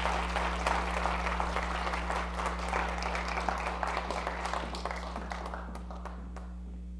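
Audience applauding in an auditorium. The clapping thins out and dies away about five to six seconds in, leaving a steady low hum.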